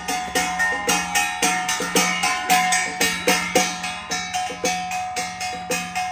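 Taiwanese temple ceremony music: a small metal percussion instrument, gong- or bell-like, struck in a steady rhythm of about three strikes a second over a held tone.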